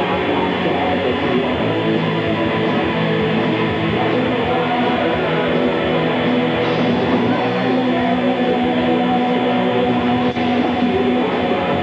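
Live rock band playing loudly and without a break, led by electric guitars.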